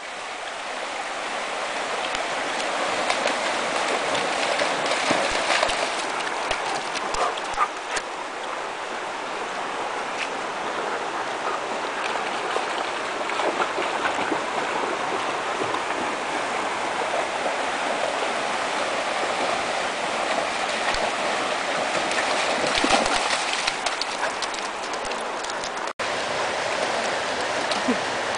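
Shallow river rushing over rocks and small rapids: a steady wash of flowing water, with a few short clicks mixed in and a momentary cut-out near the end.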